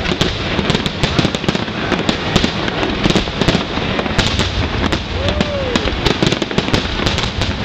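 Dense fireworks barrage with many aerial shells and ground fountains firing at once. The overlapping bursts and crackling stars blend into one continuous, loud rumble with no gaps.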